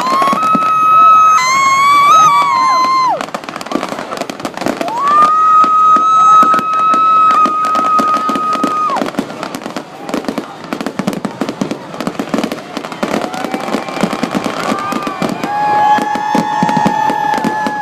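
Fireworks grand finale: a dense, continuous barrage of bangs and crackles, with long high held tones rising in and falling away over it several times.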